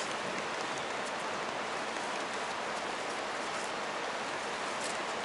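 Steady, even hiss of outdoor background noise, with a few faint ticks.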